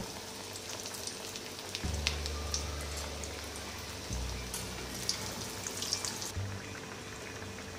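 Breadcrumb-coated potato pieces deep-frying in hot oil in a steel kadai on high flame: a steady sizzle with fine, scattered crackles. Music plays quietly in the background.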